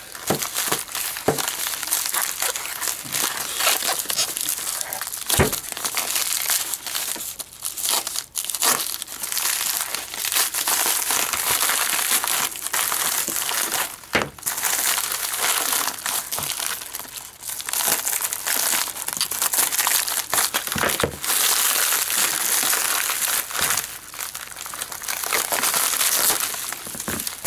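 Plastic mailer bag and bubble wrap crinkling and rustling as they are cut open with a folding knife and unwrapped by hand, with a few sharp knocks along the way.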